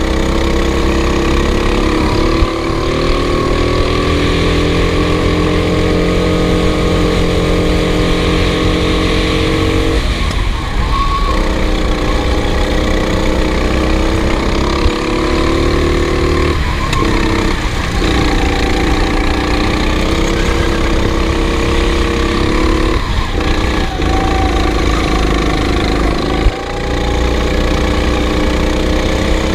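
Racing kart engine running flat out on board, steady at high revs, cutting out briefly about five times as the throttle is lifted for corners and then pulling again.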